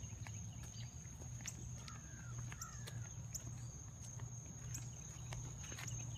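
Outdoor ambience of insects trilling steadily in one high tone, over a low hum, with scattered soft footsteps on pavement and a few faint chirps about two seconds in.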